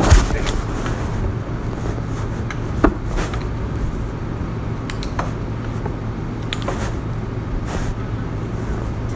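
Steady low mechanical rumble with a hum underneath, broken by a few sharp clicks and knocks, the loudest at the very start and about three seconds in.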